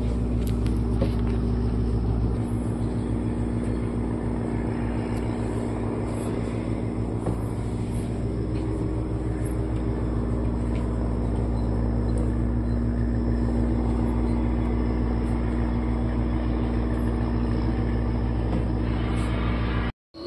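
An engine running steadily, a low drone with a constant hum and a faint even pulse underneath. It cuts off abruptly near the end.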